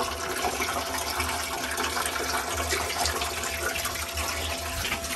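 Seawater pouring steadily into a boat's live-well tank holding caught rockfish, with small splashes as a hand moves among the fish. A thin steady tone runs under the rush of water.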